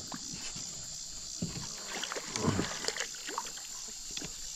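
A small channel catfish splashing at the surface as it is reeled in beside a kayak, with scattered knocks and rattles from the rod, reel and hull; the loudest splash comes about halfway through. A steady high insect hiss runs underneath.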